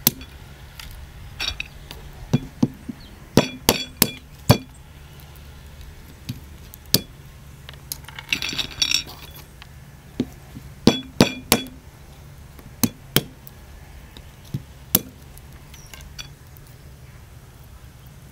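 Walnuts being cracked with a hand-held stone on a flat stone: irregular sharp knocks and shell cracks, several in quick succession around four seconds in and again around eleven seconds in, with a brief crackle of shell being broken apart in between.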